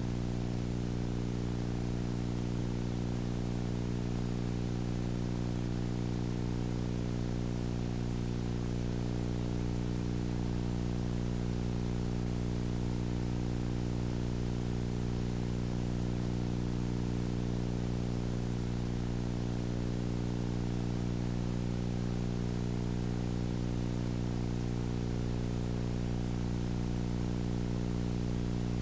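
A steady, unchanging low hum with an even hiss over it.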